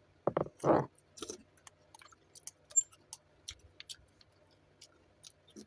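Close-up mukbang eating of noodles: a loud slurp about half a second in, then quiet chewing with many small wet mouth clicks.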